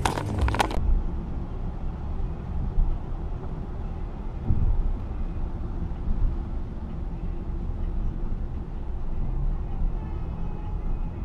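Steady low rumble of a car driving at highway speed, engine and tyre noise heard from inside the cabin. A short hiss-like noise cuts off abruptly under a second in.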